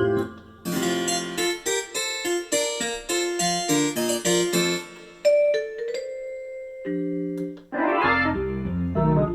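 Korg SP-250 digital piano being played: after a short pause, a run of struck notes and chords, then a single held note, and a fuller passage with low bass notes starting near the end.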